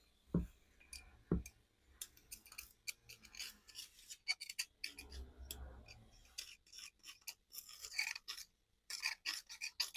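Metal tools knocking, clicking and scraping against a motorcycle wheel bearing as it is worked out of the hub. There are two dull knocks in the first second and a half, then many quick sharp clicks and scrapes.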